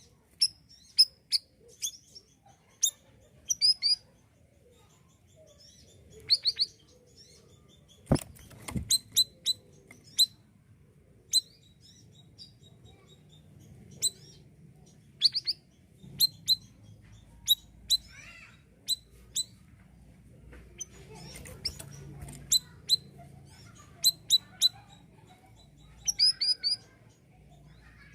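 A male siri-siri songbird singing vigorously: short, sharp, high-pitched chirps given in quick runs of a few notes, repeated every second or two. A single sharp knock sounds about eight seconds in.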